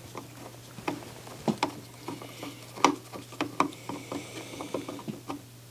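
Light, irregular clicks and taps of hands and a screwdriver handling and fitting parts inside an opened CD player chassis, over a faint steady hum.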